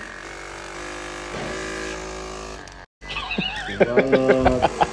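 Handheld percussion massage gun running against a man's back: first a steady motor hum, then, after a short break, a rapid regular pounding of about five beats a second, with his voice shaken into a wobbling warble by the blows.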